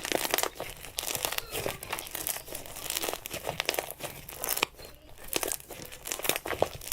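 Slime being squished and stretched by hand, giving dense crackling, crunchy pops and clicks in clusters.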